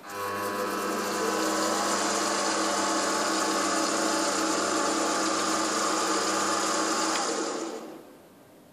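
Welding positioner's electric drive motor and gearbox running with a steady hum and gear whine as the table moves, then winding down and stopping near the end.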